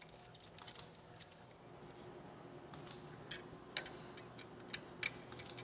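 Faint, scattered metallic clicks and taps as the aluminium Honda CT70 crankcase is worked onto the mount of a bike-building stand, a few sharper ticks in the second half, over a faint steady hum.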